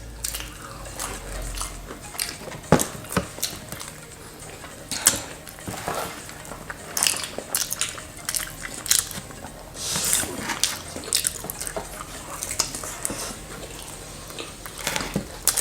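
People eating pizza: chewing and handling food, heard as irregular light clicks, smacks and short crackling rustles.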